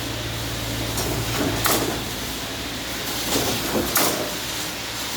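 Concrete pump running while it pumps concrete through a hose. A steady engine hum runs throughout, with a sharp clank about every two seconds as the pump cycles.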